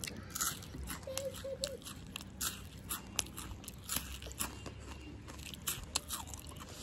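A Nestlé Munch chocolate-coated wafer bar crunching as it is bitten and chewed, many irregular crisp crunches.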